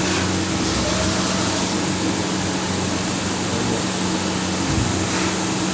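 CNC lathe running a G78 threading cycle, taking 0.3 mm passes to cut an M20 thread on a shaft; the machine gives a steady hum with a hiss over it.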